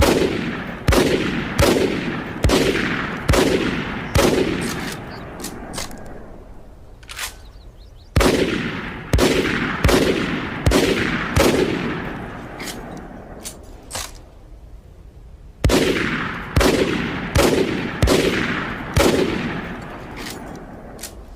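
Loud, sharp bangs, each followed by a long echoing fade. They come in three runs of six or seven, about one every 0.8 s, with short pauses between runs holding a few fainter clicks.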